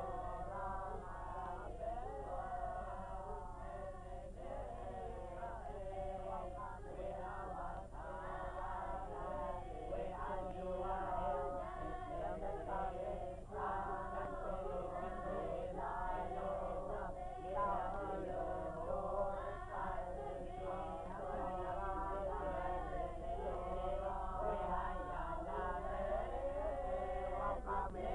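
A group of voices chanting together as a choir, over a steady low hum.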